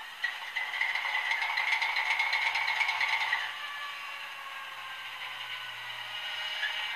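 Sound decoder in a Piko BR232 diesel locomotive model playing locomotive sound through its small onboard speaker. A tinny, rattling clatter with a tone that rises slightly and then fades after about three seconds gives way to a quieter, steady sound.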